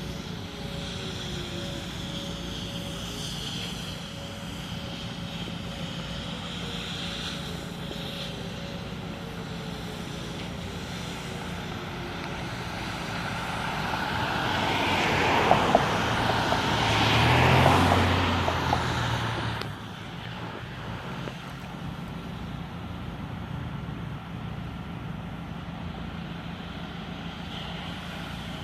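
Outdoor background with a passing engine that swells up over several seconds toward the middle, then cuts off suddenly.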